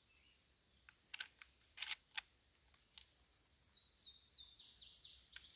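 Sharp metallic clicks of .30-30 cartridges being pushed through the loading gate into the tube magazine of a Winchester Model 1894 lever-action rifle, a handful in the first three seconds. In the second half a songbird sings a run of short falling notes.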